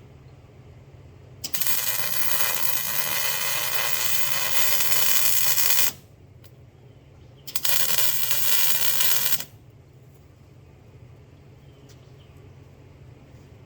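Welding arc crackling and sizzling in two runs, the first about four seconds long and the second about two, each starting and stopping abruptly, as a weld bead is laid on the smoker's steel frame. A low steady hum runs underneath.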